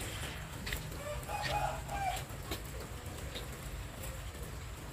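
Light rain falling, with scattered drips and taps, and a chicken clucking briefly between one and two seconds in.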